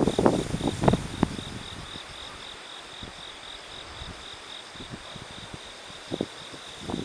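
Crickets chirping in a steady, evenly pulsed high note. Wind gusts buffet the microphone in the first second or so.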